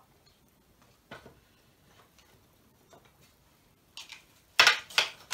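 Spoons being handled at a plastic mixing bowl. There are a few faint clicks, then near the end a quick run of loud clicks and knocks as a metal spoon starts knocking against the bowl.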